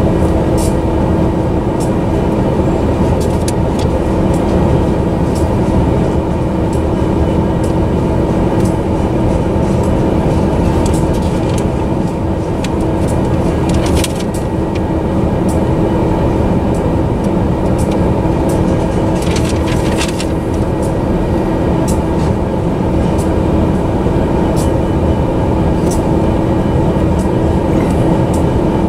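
Double-stack intermodal container train rolling past: a loud, steady rumble of steel wheels on the rails with the cars rattling, broken by a few sharp clanks about halfway and two-thirds of the way through.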